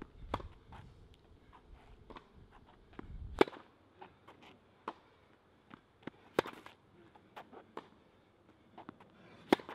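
Tennis ball struck by rackets in a rally: a sharp pop about every one and a half seconds, loud and fainter hits alternating, with lighter footsteps and shoe scuffs between them. A low rumble cuts off suddenly about a third of the way in.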